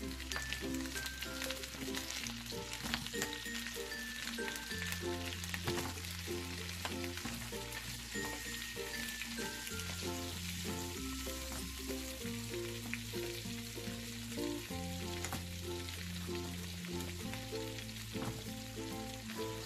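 Butter and garlic sizzling and crackling around green-lipped mussels frying in a nonstick pan, with a wooden spatula stirring them. Background music with a stepping bass line plays over it.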